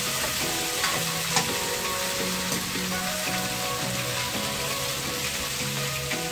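Potato and carrot chunks sizzling in a frying pan over a gas flame as they are stir-fried, with a steady hiss and the utensil clicking against the pan a couple of times.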